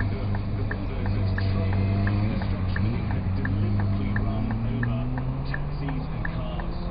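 Scania R420 truck's inline-six diesel engine idling, heard inside the cab, its pitch rising slightly about halfway through. A regular tick about three times a second runs over it, typical of the indicator relay.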